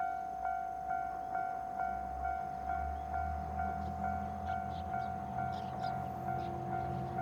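Japanese electronic level-crossing warning bell ringing steadily at about two strikes a second. Under it, the low engine hum of an approaching KiHa 120 diesel railcar grows from a few seconds in.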